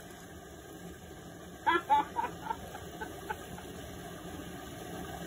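A person's voice in a quick run of short high notes, fading over about a second and a half, starting about two seconds in, over a steady low hiss.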